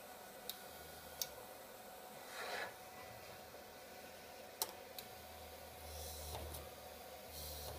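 Quiet handling sounds at a small homemade PCB drill press: a few small sharp clicks, a brief rub about two and a half seconds in, and a faint low rumble in the second half.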